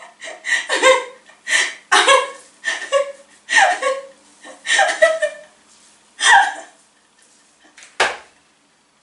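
A woman laughing hard in a long run of quick, breathy bursts that die away about seven seconds in. A single sharp click near the end.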